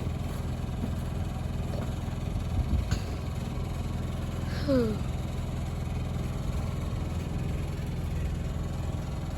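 Steady low hum of an idling vehicle engine, with a brief click about three seconds in and a short falling pitched sound about halfway.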